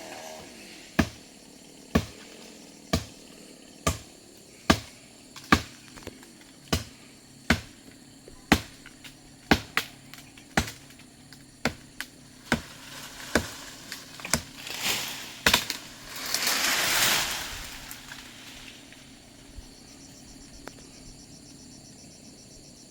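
A blade chopping into wood by hand, sharp strokes at about one a second, with a rustling rush of noise a little past the middle.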